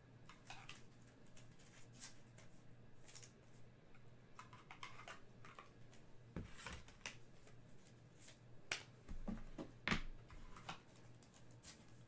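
Faint handling of trading cards and pack wrappers: scattered light rustles and clicks, with a few soft knocks between about six and ten seconds in, over a faint steady hum.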